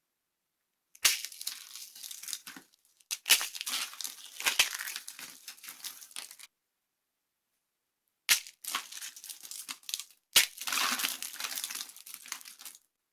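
Dry soap being crushed, crunching and crackling in four separate bursts, each starting with a sharp crack: the first about a second in, then a longer one, and two more in the second half.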